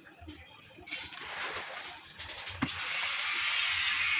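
A few light metal clicks and taps as engine casing parts are handled and seated by hand. From about three seconds in, a steady hiss takes over and is the loudest sound.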